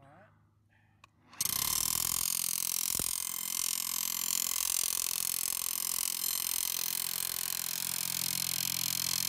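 Power hammer driving a copper-clad ground rod into the soil: it starts abruptly about a second and a half in and runs steadily.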